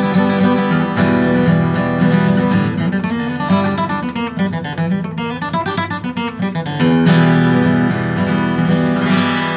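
Savannah 00-size acoustic guitar with koa top, back and sides, strummed hard with a pick, with full ringing chords. The middle is a softer passage of quicker strokes, and full, loud strumming comes back about seven seconds in.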